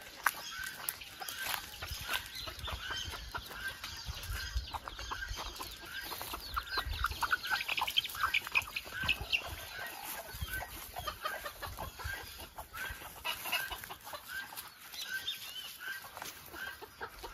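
Free-ranging chickens calling: a short call repeated steadily, well over once a second, with a flurry of quicker, higher chirps about halfway through.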